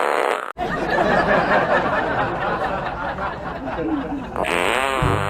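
A fart sound effect that cuts off about half a second in, followed by a few seconds of laughing, chattering voices. Near the end comes a warbling sound effect that wobbles up and down in pitch.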